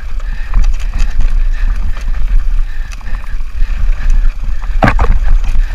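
Mountain bike (Specialized Turbo Levo e-bike) rattling and clattering over loose rock, with a steady low wind rumble on the microphone. One sharp knock stands out about five seconds in, as the bike strikes a rock.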